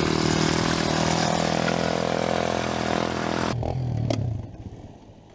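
An ATV engine running loudly at high revs, which drops away sharply about three and a half seconds in.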